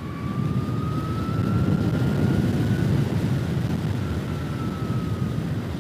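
Zero SR/F electric motorcycle under way: the electric motor's thin whine rises in pitch as the bike speeds up, then fades and falls slightly near the end, over a low rumble of wind and road noise that slowly grows louder.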